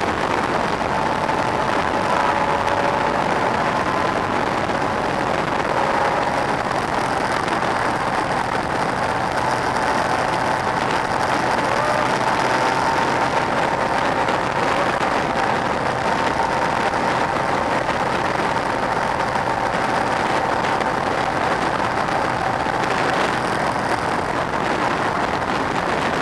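Yamaha MT-09's three-cylinder engine running at a steady cruise, heard under a heavy, even rush of wind on the bike-mounted camera's microphone.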